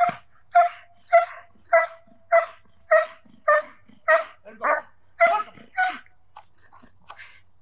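German Shepherd barking in an even rhythm, about eleven barks a little over half a second apart, stopping about six seconds in. It is a protection dog's guard bark, lunging on the leash at a training helper.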